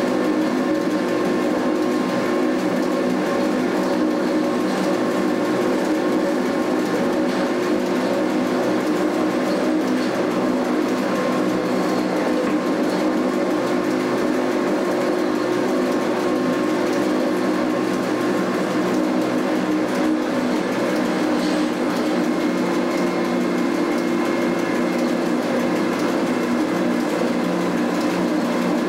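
Electric cogwheel train running steadily on its rack line, a constant machine hum and rumble of motors and gearing heard from inside the driver's cab, with several held tones and no change in speed.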